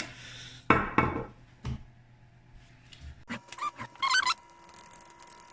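A metal fork stirring sauce and oil in a ceramic bowl, scraping and squeaking against the bowl from about three seconds in. A single thump comes a little under a second in.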